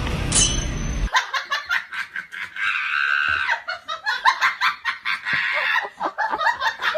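Music that cuts off about a second in, then a person laughing hard, in rapid repeated peals.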